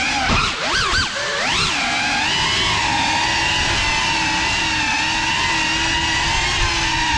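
Electric motors and propellers of a 6S GEPRC Cinelog35 FPV quadcopter whining in flight. The pitch swoops up and down several times in the first two seconds as the throttle changes, then holds a steady whine.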